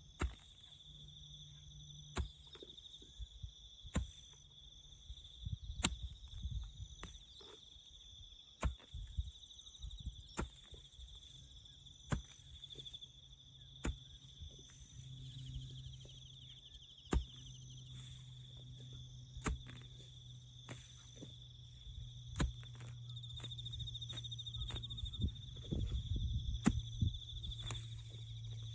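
Crickets trilling steadily, with sharp knocks every couple of seconds and a low steady hum coming in about halfway through.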